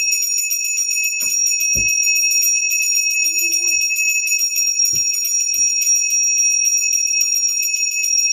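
Brass puja hand bell (ghanta) rung rapidly and continuously during the aarti, a steady high-pitched ringing, with a few soft knocks.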